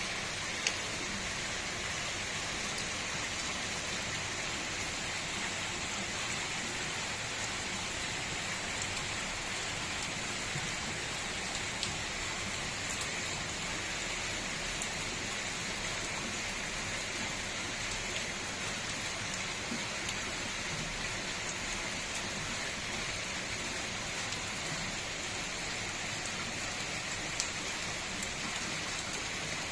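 Steady rain falling, an even hiss with a few sharper drop ticks standing out, one about a second in and one near the end.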